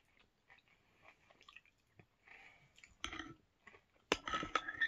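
Chewing a mouthful of Oatmeal Crisp cereal in milk: soft, scattered crunches with louder bursts of crunching near three and four seconds in, and a sharp click of the spoon in the ceramic bowl just after four seconds.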